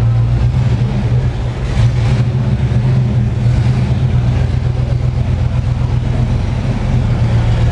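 A steady, low engine drone that runs unbroken, with a brief rush of noise about two seconds in.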